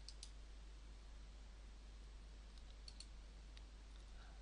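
A few faint computer mouse clicks, scattered and short, over near-silent room tone.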